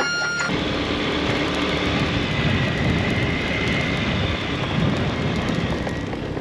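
Wind rushing and buffeting over the microphone on a moving motor scooter, with the scooter's small engine running steadily underneath. It starts suddenly about half a second in.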